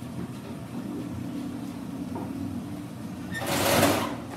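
Tapered bearing rollers being rubbed together by hand in sand, with faint clinks, under a steady low hum. About three and a half seconds in there is a loud rushing noise lasting under a second.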